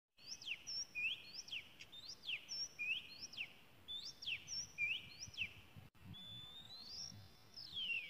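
Oriental magpie-robin singing: clear whistled notes, each a quick pitch sweep up or down, repeated in a steady pattern about every two-thirds of a second. After a brief break about six seconds in comes a longer rising whistle, then a falling one near the end.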